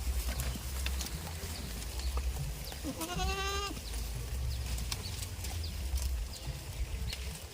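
A goat bleats once, about three seconds in: a single short, wavering call under a second long. A steady low rumble and faint scattered clicks run beneath it.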